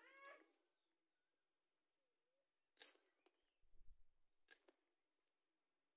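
Faint, sharp scrapes of fish scales being pushed off against the blade of a boti: two crisp scrapes about a second and a half apart, about halfway through, with a soft low thud between them.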